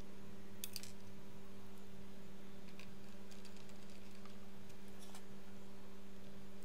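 A few light clicks and taps from handling a bare laptop motherboard and its copper heatsink, the clearest about a second in, over a steady low electrical hum.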